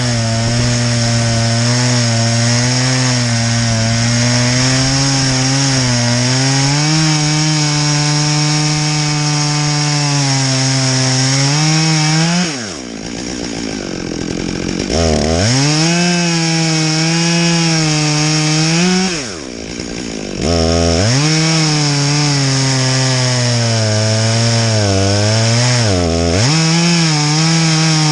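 Two-stroke chainsaw on a chainsaw mill running at full throttle, ripping a box elder log lengthwise. About halfway through the engine drops towards idle and revs back up, dips twice more, and falls off again near the end.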